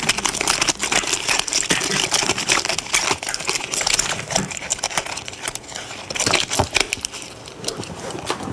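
Recyclable packaging waste crumpled and crinkled by hand in a dense run of crackles that thins out near the end.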